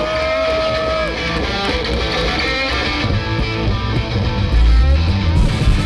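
Live rock band starting a song, led by electric guitar. The low end fills out about three seconds in and gets louder near the end.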